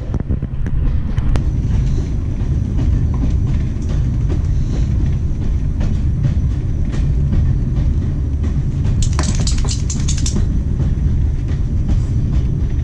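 Diesel-hauled train running along the track, heard from inside the carriage: a steady low rumble of wheels on rail with light clicks, and a brief louder clatter about nine seconds in.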